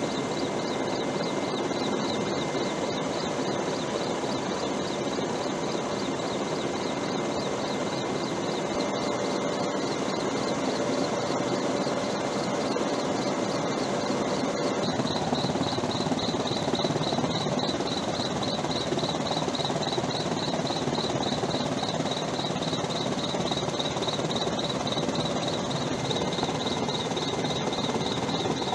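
Steady aircraft engine noise with a high, fast-pulsing whine that gets louder about halfway through.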